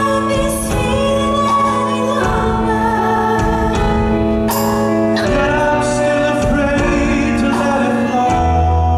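Amplified live band music from a rock musical, with a singer over held chords.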